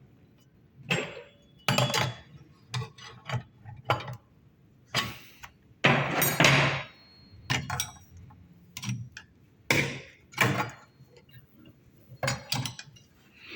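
Spanner working the threaded tube fittings on an espresso machine's steam-boiler safety valve as they are screwed fully tight: irregular sharp metal clicks and clinks, with a longer, louder clatter about six seconds in.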